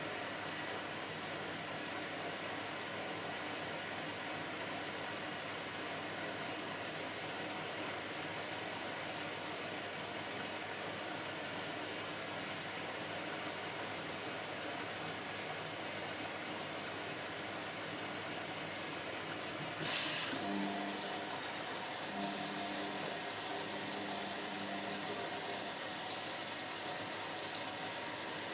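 Indesit washing machine taking in water at the start of its sport wash cycle, a steady rush of water. About twenty seconds in there is a click, then a low hum from the machine in three short spells.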